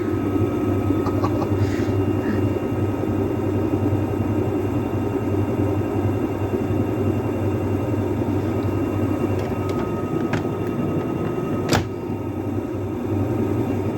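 AEG washing machine running with a steady, loud low rumble and hum from the turning drum and motor, the machine overloaded with foam. A single sharp knock comes near the end.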